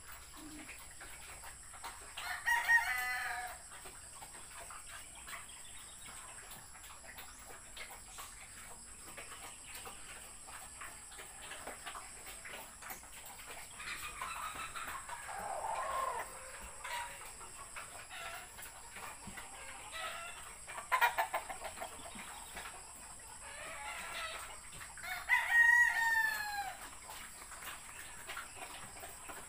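Roosters crowing a few times, with one crow near the start, one about halfway and one near the end, the last falling away in pitch at its close.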